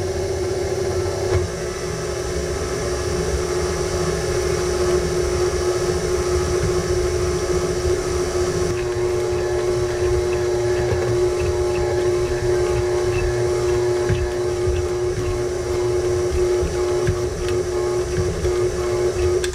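KitchenAid Artisan stand mixer running, its beater working a pie crust dough of flour, butter and cold water: a steady motor hum with a constant whine, switching on at the start and cutting off at the end.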